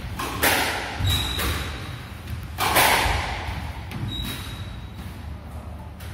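Squash ball being struck by rackets and hitting the court walls in a rally: about four sharp thwacks, the loudest about three seconds in, each with a short echo off the court walls.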